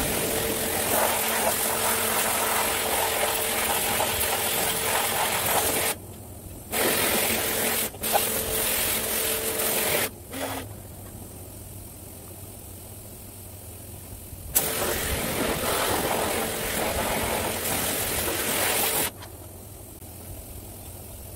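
Electric pressure washer running in spells of a few seconds as its trigger is squeezed and released: a motor hum under the hiss of the water jet spraying the motorcycle. It stops and restarts several times, with the longest pause of about four seconds in the middle.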